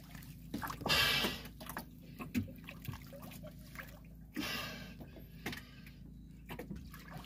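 Water splashing and sloshing as a snorkeler swims alongside an outrigger boat's float, with two louder swishes, about a second in and just past the middle, and small knocks and drips between. A faint steady low hum runs underneath.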